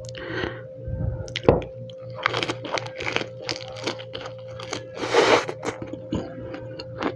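Close-up crunching and chewing of a fresh lettuce wrap filled with dried (pinatuyo) pork adobo and dipped in a mayonnaise-ketchup sauce. It is a fast run of crisp crunches that grows denser after the first couple of seconds, with a louder crunch about five seconds in.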